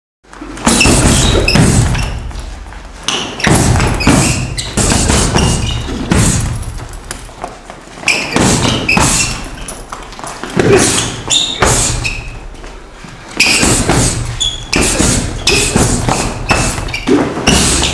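Repeated, irregular punches thudding into a heavy punching bag, each hit echoing in a large hall.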